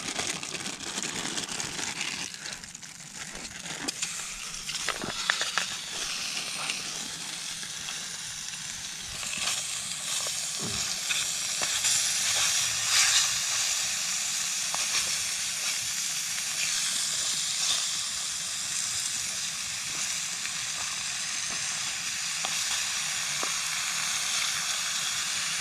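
Bacon sizzling and crackling in a foil Jiffy Pop popcorn pan on a camp stove. It grows louder a few seconds in, then holds steady with scattered pops.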